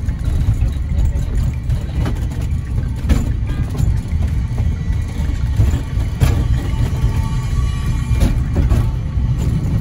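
Steady low rumble of a vehicle on the move, with a few short knocks and rattles.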